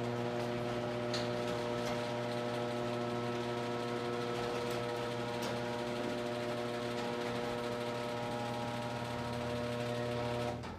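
Electric garage door opener running as the door rises, a steady motor hum that stops just before the end once the door is fully open.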